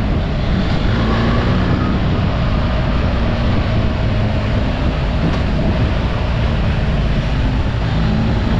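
BMW R 1300 GS boxer-twin engine running on the move, its pitch rising and easing with the throttle through the bends, under a steady rush of wind and road noise.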